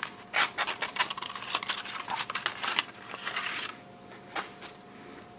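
Cardboard CPU box and clear plastic clamshell tray crackling and clicking as the packaging is unsealed and the tray slid out, for nearly four seconds; then one sharp click.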